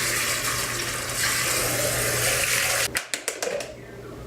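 Kitchen tap running water in a steady hiss that stops about three seconds in, followed by a few quick clicks and knocks.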